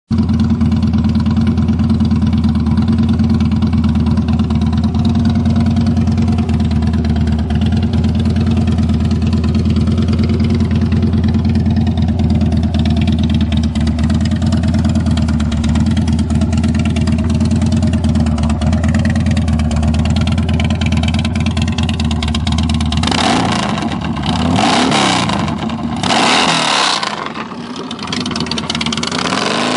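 2008 Harley-Davidson Dyna's Twin Cam V-twin idling steadily through aftermarket Python mufflers. Near the end the throttle is blipped three times in quick succession.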